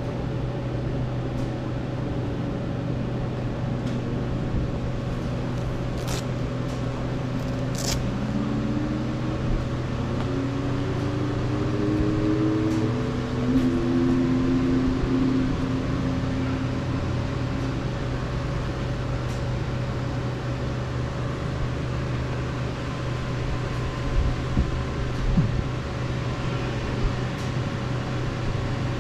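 Car engine running steadily, its pitch rising several times between about 8 and 16 seconds in as the car picks up speed.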